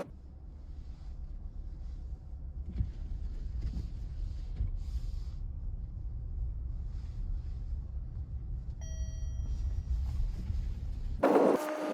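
Car driving, a steady low rumble of engine and road noise. A short beep comes about nine seconds in, and a brief louder burst near the end.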